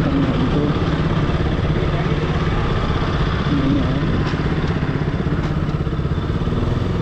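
KTM RC 200's single-cylinder engine running steadily at low revs, a constant low rumble with no revving, as the bike is ridden slowly.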